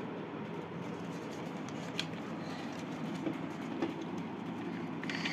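Steady low background hum with a few faint ticks and soft handling sounds as a small folded-paper pencil holder is handled in the hands.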